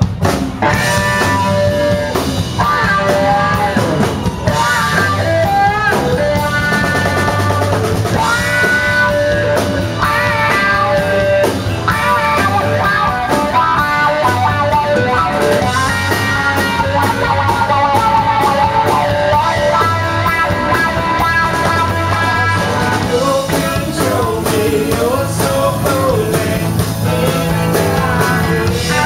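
Live band playing a song: electric and acoustic guitars, bass guitar and drum kit, at a steady loud level.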